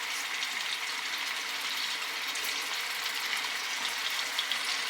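Chicken breasts sizzling in olive oil in a cast iron pan: a steady, even frying hiss.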